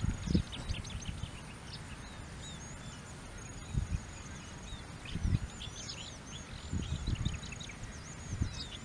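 Many small birds chirping and twittering, a steady stream of short rising and falling calls, with a few brief low rumbles of wind on the microphone now and then.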